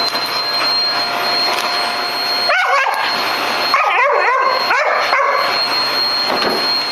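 Vacuum cleaner running steadily with a high whine. From about two and a half seconds in, a dog barks and yips at it in a run of short, bending calls.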